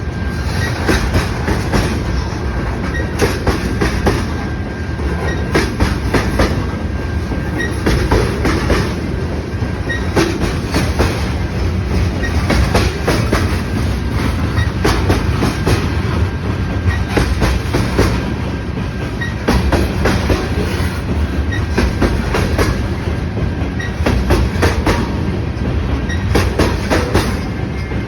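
Freight train of box cars and tank cars rolling past, the steel wheels clicking steadily over the rail joints over a continuous rumble.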